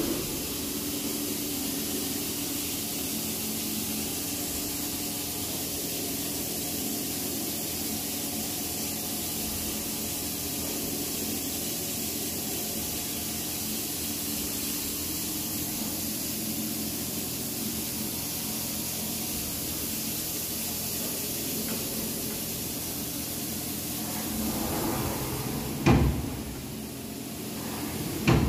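Vertical machining centre drilling a deep hole in a metal die block with a long twist drill under flood coolant: a steady spray hiss with a low machine hum underneath. Two sharp knocks near the end.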